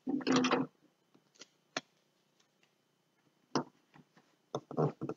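Scattered sharp clicks and taps as a plastic gallon milk jug and duct tape strips are handled on a tabletop, about six in all, with a cluster near the end. A brief vocal sound comes at the very start.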